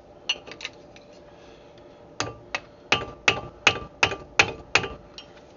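Hammer blows on a screwdriver set against a rusted-in brake caliper slide pin, driving the seized pin out of its bracket. A few light metal clinks come first, then eight sharp metallic strikes about three a second, each with a short ring.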